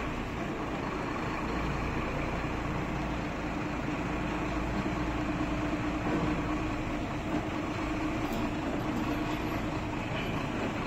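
Crane truck's engine running steadily at idle, a constant low hum while its loader crane holds a lamp post.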